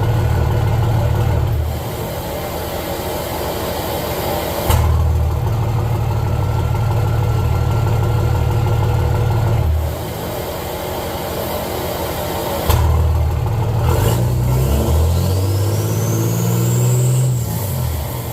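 5.9 Cummins turbo diesel with a 5-inch downpipe and turned-down axle-dump exhaust, driving. The engine note swells and drops back three times, and a rising turbo whistle climbs near the end.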